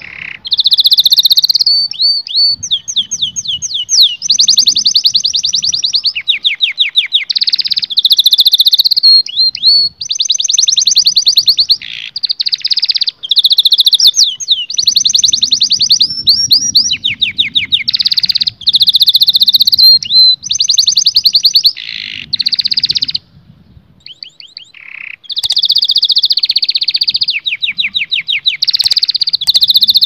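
Domestic canary singing a long, loud song of rapid trills, rolling phrases and quick sweeping whistles, one phrase after another, with a pause of about two seconds past the middle.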